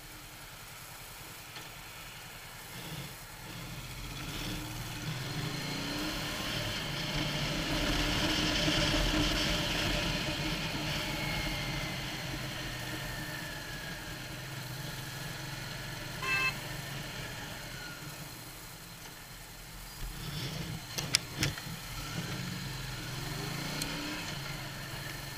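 Motorcycle engine idling at a stop, then pulling away and riding along, with wind and road noise building as it gathers speed and easing off again. A short beep about sixteen seconds in and a few sharp knocks around twenty-one seconds.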